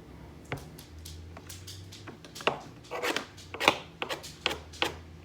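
A knife cutting a tomato on a cutting board: a run of irregular knocks, about ten in all, coming closer together in the second half.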